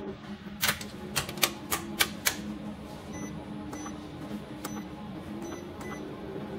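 Push buttons on a solar inverter's control panel being pressed: a quick run of about six sharp clicks in the first couple of seconds, then fainter clicks, some with a short high beep, over a steady low hum.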